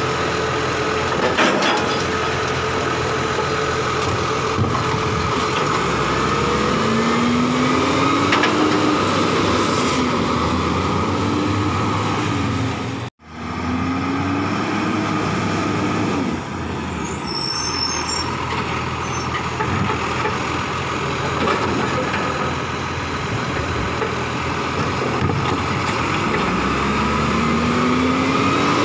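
Side-loading garbage truck running, its engine rising in pitch several times as it revs, over a steady whine, while its automated side arm lifts and tips a wheelie bin and the truck pulls up to the next bins. There is a brief break in the sound about a third of the way through.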